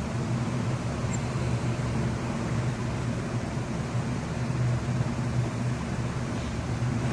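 Hot oil sizzling steadily in a kadai as balls of batter deep-fry, over a constant low hum.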